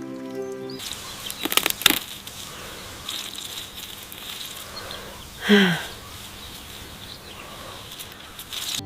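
Soft background music stops under a second in and gives way to a steady outdoor hiss. About a second later comes a brief flurry of rustling and flapping. About five and a half seconds in there is a short animal cry that falls in pitch.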